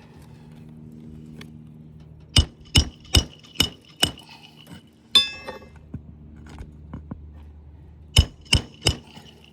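Hammer driving roofing nails back into an asphalt shingle: five quick ringing strikes, one sharper metallic clang with a lingering ring about halfway through, then three more strikes near the end.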